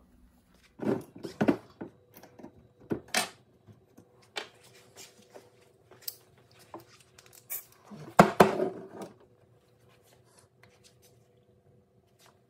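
Scattered knocks and clinks of a motorcycle brake caliper and hand tools being handled on a workbench, with the loudest cluster of clatter about eight seconds in, over a faint steady hum.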